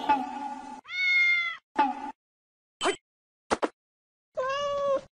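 Cat meowing: a longer meow about a second in, three short calls, and another longer meow near the end, with silence between. The tail of a pop song fades out in the first second.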